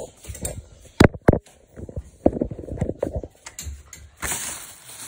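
Handling noise from a phone being carried and moved about: two sharp knocks about a second in, then rubbing and rustling against the microphone.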